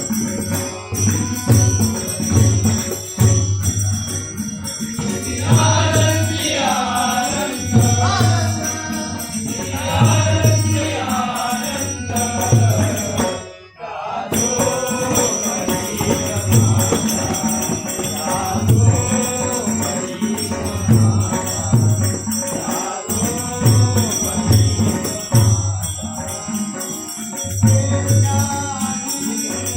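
Bhajan singing of a Marathi abhang: a voice sings over a steady beat of drum strokes and jingling metal percussion. The sound drops out briefly about halfway through.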